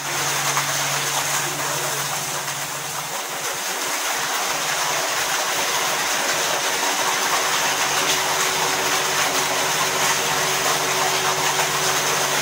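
Hidrostal submersible pump running in a small basin: a steady hum with the rush of water swirling into its intake.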